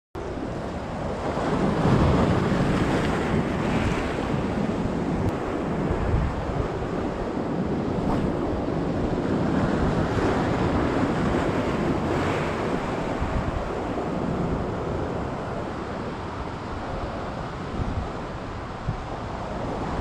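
Rough sea surf breaking and washing over shore rocks, swelling in surges every few seconds, with wind rumbling on the microphone.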